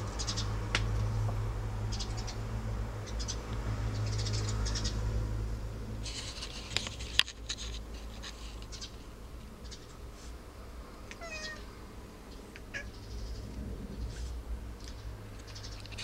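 A cat chattering at birds through a window: repeated bursts of rapid, high clicking chirps, with a few short falling calls later on. A sharp click about seven seconds in, and a steady low hum underneath.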